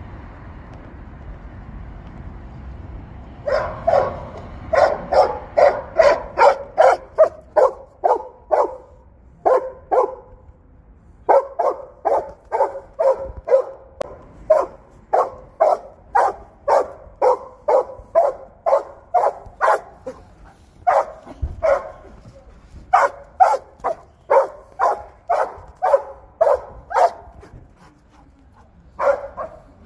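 Belgian Malinois barking hard in rapid runs of about three barks a second, starting a few seconds in and broken by short pauses.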